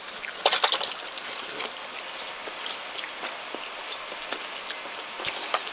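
Scattered light clicks of tableware at a dinner table, a cluster about half a second in and single ones later, over a steady background hiss.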